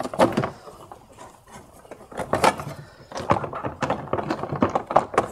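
Plastic airbox housing being worked back into a car's engine bay: irregular knocks, clicks and scrapes of plastic as it is pushed and seated against the surrounding pipes.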